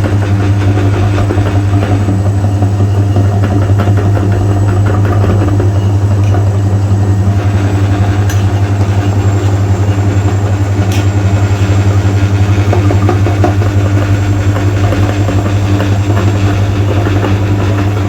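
Electric meat grinder running steadily with a low motor hum, grinding material through, with a couple of brief clicks about 8 and 11 seconds in.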